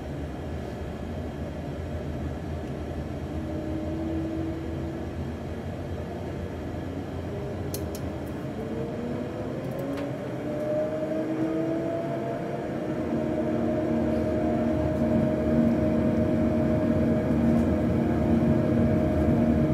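Boeing 737-800 simulator's jet engine sound spooling up for takeoff: a steady rumble, with an engine whine that rises in pitch about nine seconds in, then holds while the sound grows louder. A few faint clicks about eight seconds in.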